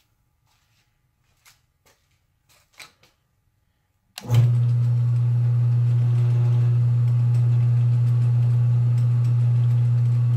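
A few faint clicks, then about four seconds in the early-1950s Sheldon lathe is switched on and runs with a steady low hum, its chuck spinning.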